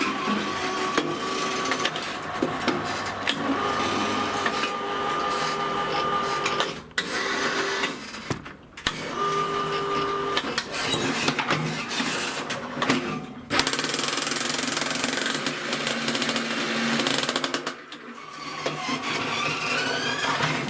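Homemade electric power shovel working with its jackhammer attachment: a steady electric motor whine under a fast mechanical rattle, stopping briefly several times.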